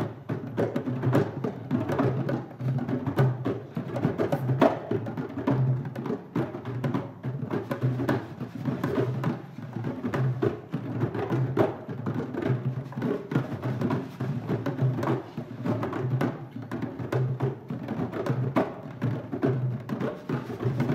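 Ensemble of hand drums, djembes and congas among them, playing a dense interlocking rhythm of sharp slaps and tones, with a low drum note recurring through it.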